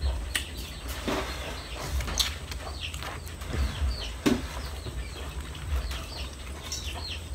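Quiet eating sounds: scattered small clicks and mouth noises, with a few short high bird chirps over a low rumble.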